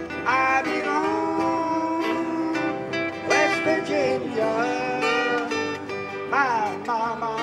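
A small live band playing: a woman sings lead, with sliding sung phrases, over strummed acoustic guitars, an electric bass and an electric guitar.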